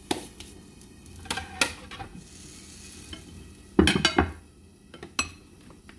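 Ham and scrambled eggs sizzling faintly in a frying pan, while a spatula scrapes and knocks against the pan and a plate a few times as the food is dished up; the loudest knocks come about four seconds in.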